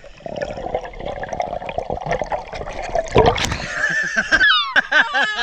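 Underwater gurgling and bubbling from a camera held under the sea surface, then a loud splash as it breaks the surface about three seconds in. Near the end a person's voice rises and falls in high, wavering sounds.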